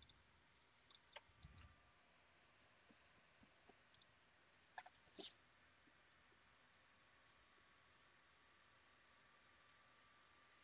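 Faint, scattered computer mouse clicks over near silence, thinning out after about eight seconds.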